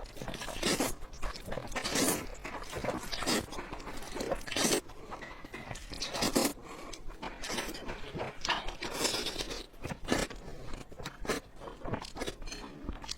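Close-miked eating of spicy egg noodles: chewing with irregular crunchy, wet bites and mouth noises.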